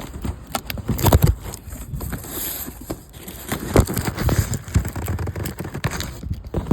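A cardboard shipping box being opened and its contents handled, with irregular scrapes, crinkles and knocks.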